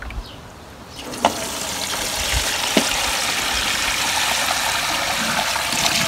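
Water running steadily, coming up about a second in, with a couple of light knocks.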